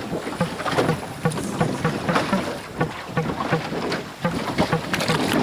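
Wind buffeting the microphone and water splashing and sloshing against a small boat at sea, in an uneven, gusty rush.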